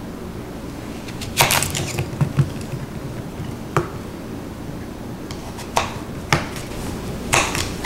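Kitchen knife slicing through zucchini and striking a bamboo cutting board. There are several sharp knocks at uneven intervals: a quick cluster a little over a second in, then single cuts spaced farther apart.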